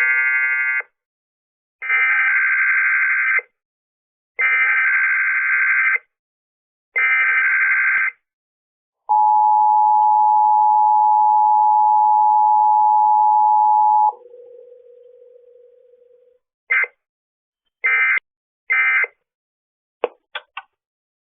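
Emergency Alert System SAME data tones: a short burst, then three longer bursts of high, warbling digital data. Next comes the two-tone EAS attention signal, held steadily for about five seconds, followed by a brief fading low hum. It ends with three short data bursts and a few clicks.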